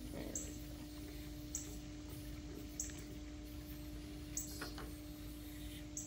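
Faint clicks and scrapes of a small propane cylinder being threaded onto a camp stove's regulator, over a steady low hum. Five short, high chirps repeat roughly every one and a half seconds.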